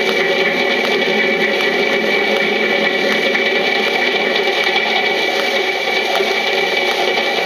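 A Bluebird 78 rpm children's sound-effects record playing on a turntable: a steady mechanical running sound with several held tones, under record surface hiss and faint crackle.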